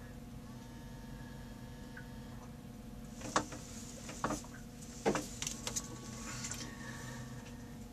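Steady machine hum, with a handful of sharp knocks and clicks about three to six seconds in.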